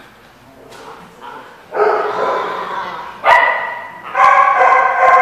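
Small dog giving drawn-out, pitched play barks while wrestling another dog: three long calls, the first about two seconds in, each lasting about a second.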